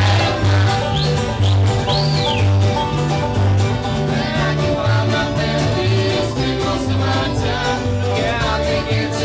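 Bluegrass band playing, with steady string picking over a bass that alternates between two low notes about twice a second.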